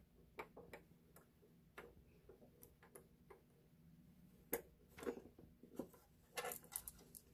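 Faint, irregular small clicks and ticks of a cable connector being pushed onto and turned in the threaded side socket of a Chasing E-Reel tether winder, with a few closer-spaced clicks in the second half.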